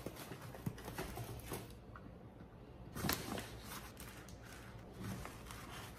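Quiet handling sounds: a pen writing on paper and a fabric reusable gift bag being moved, with a couple of short rustles about three seconds in.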